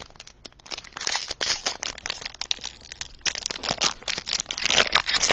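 Crinkling of a trading-card pack wrapper being handled, a dense run of crackles that starts about half a second in and grows louder toward the end.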